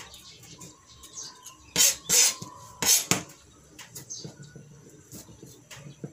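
Kitchen knife cutting tomato on a plastic cutting board, with two louder scraping strokes about two and three seconds in and light knife taps between.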